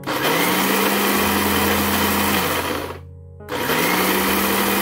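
Countertop blender pulsed to coarsely grind soaked glutinous rice in water. The motor spins up, runs for about three seconds and winds down, then starts again about half a second later.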